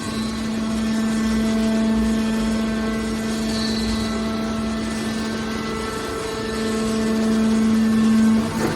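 Horizontal hydraulic metal baler running with a steady machine hum. It gets louder about six and a half seconds in, then drops near the end.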